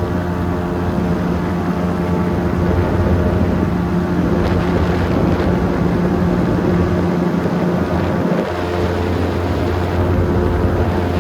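An engine running steadily, a low drone with even overtones, dipping briefly about eight seconds in.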